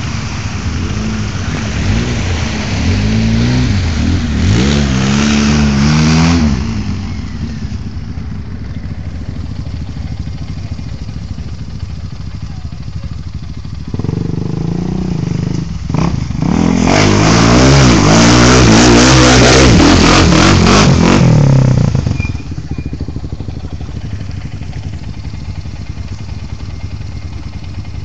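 ATV engine running and revving up twice, its pitch climbing and falling, the first time a few seconds in and the second, louder and longer, past the middle. A sharp knock comes as the second rev starts. Between and after the revs it settles to a steadier, lower running.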